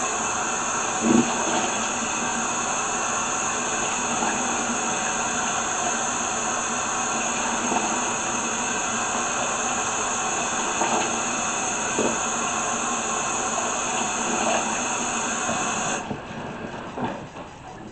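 Kitchen faucet running water steadily into the sink, with a few light knocks of dishes. The water shuts off abruptly near the end.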